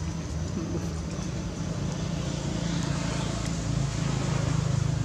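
A motor running steadily, a low drone that grows slightly louder toward the end.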